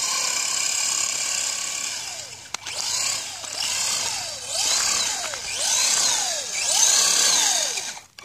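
Electric motor and drivetrain of a Redcat Piranha RC truck whining under throttle, first held steady, then revved up and let off again and again, about once a second, as the wheels spin on slick pine needles and snow. A sharp click comes about two and a half seconds in.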